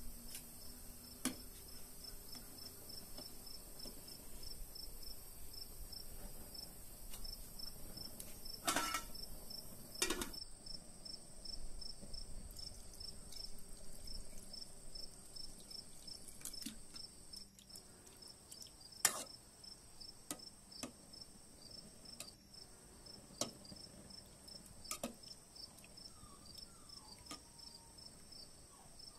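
Crickets chirping in a steady, even rhythm, with a constant high insect drone behind them. Now and then comes a sharp knock or clink of a ladle against a metal pot.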